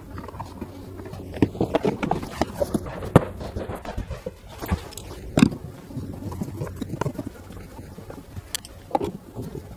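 Plastic inner door trim panel of a Mercedes C-Class W206 being pressed onto the door: an irregular run of clicks and knocks as its clips snap into place, loudest about one and a half, three and five and a half seconds in.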